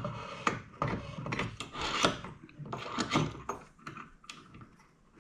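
Irregular scraping and knocking as parts and tools are handled during work on the bent scope tube, with about a dozen short sharp knocks among rubbing sounds.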